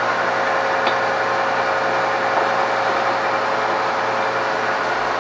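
Cincinnati Model 205-12 horizontal milling machine running: a steady gear-driven whir from its spindle drive and feeds, with a steady tone through it and a light click about a second in.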